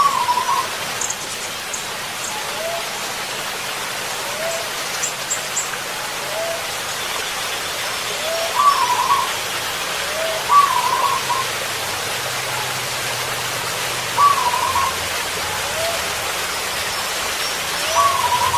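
Zebra doves cooing: a loud rolling, trilled coo five times, over a softer short rising call repeated about every second and a half. A steady rushing hiss like rain sits behind them.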